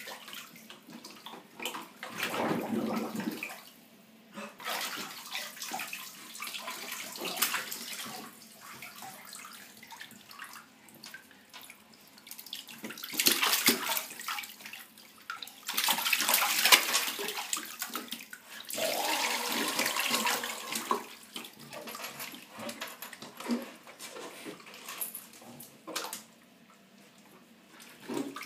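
Bath water sloshing and splashing around a baby in a bathtub, in irregular surges, the loudest a little past halfway.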